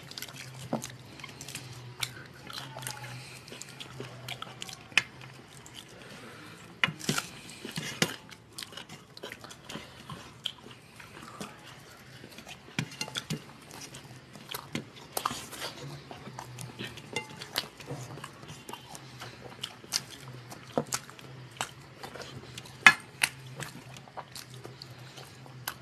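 Close-miked eating by hand: wet chewing and lip smacks, with fingers scraping and clicking against stainless steel plates as rice is mixed and scooped. The sharp ticks come irregularly, several a second at times, over a faint steady low hum.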